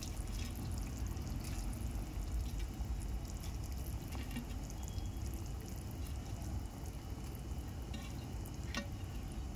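Fried soybean kofta balls being dropped one by one into simmering gravy in a kadhai, giving scattered small plops and drips over a steady low rumble.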